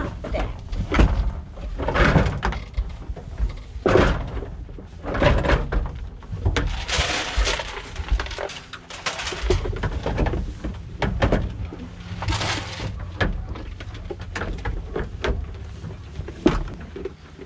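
Goats jostling and feeding at a wooden feed box: repeated knocks and bumps against the boards and corrugated metal, with grain rattling out of a plastic scoop.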